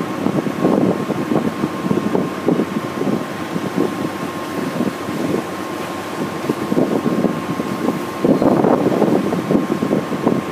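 Wind buffeting the microphone on a small passenger boat under way, over the boat's engine running steadily and the wash of its wake. A thin steady whine sits above it, and the gusts are strongest towards the end.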